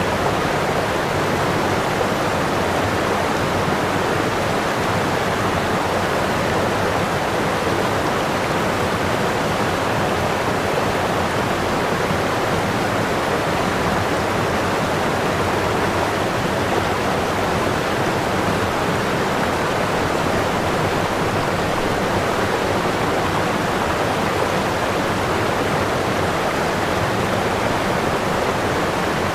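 Running water rushing steadily, an even, unbroken hiss and splash that does not change.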